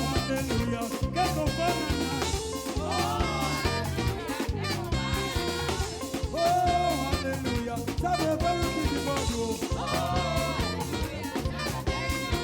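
Live gospel praise band playing an upbeat dance groove: a steady drum beat and bass, with a melodic line rising and falling over the top.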